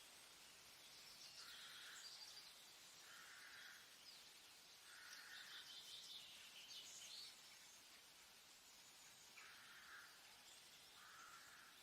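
Faint forest ambience of wild animal calls. A short, even call repeats five times, about every one to two seconds, over higher chirps and trills and a soft steady hiss.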